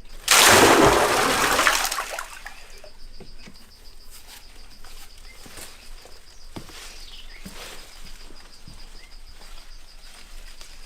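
A loud rush of splashing water lasting about a second and a half, then fading, over crickets chirping steadily, with a few small knocks afterwards.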